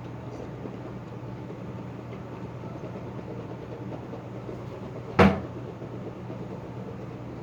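A single sharp knock about five seconds in, over a steady low hum.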